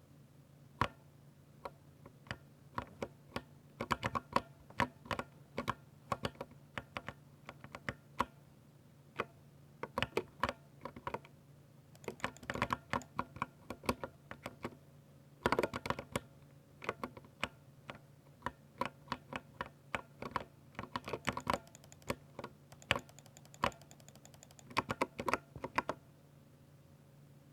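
Typing on a 60% mechanical keyboard with Cherry MX Silver linear switches: irregular runs of crisp keystroke clicks, faster in bursts and with short pauses between.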